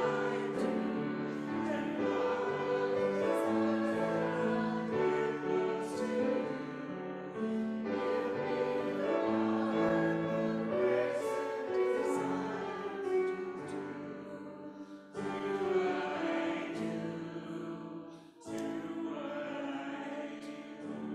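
Group of voices singing a hymn with instrumental accompaniment, in long held notes with brief breaks between phrases.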